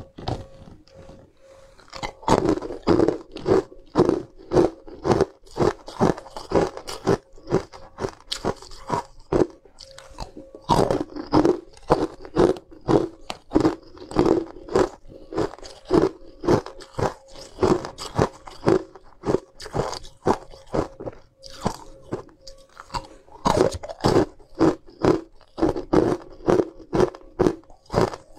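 Frozen ice pieces being bitten and crunched between the teeth, a sharp crunch about twice a second in long runs, with two short pauses.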